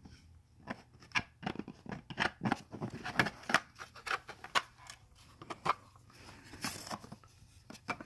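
Hard 3D-printed plastic laser shield parts handled and fitted together by hand: a run of irregular clicks, taps and scrapes as the pieces slide and lock into place.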